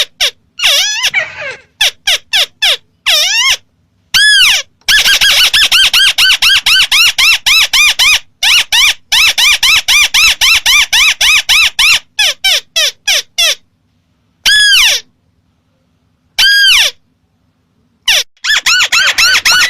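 Recorded lure call of a ruddy-breasted crake (burung tikusan merah): rapid runs of short, loud, rising-and-falling whistled notes, about five a second, broken by brief pauses.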